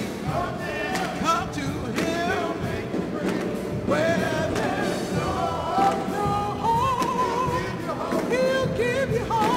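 Church music ministry singing a sacred song, voices carrying a wavering melody over piano and band accompaniment with a regular beat.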